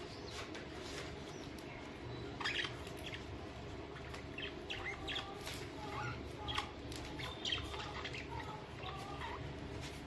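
A flock of budgerigars chirping and chattering: short, sharp chirps and little rising and falling whistles, scattered through from about two seconds in, over a steady low hum.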